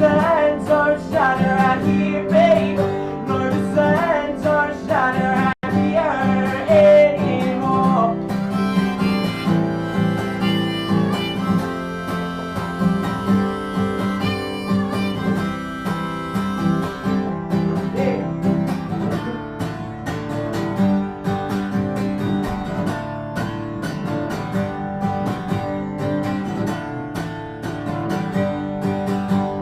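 Live acoustic guitar music with a bending melody line over it for the first several seconds. The sound drops out for an instant about five and a half seconds in.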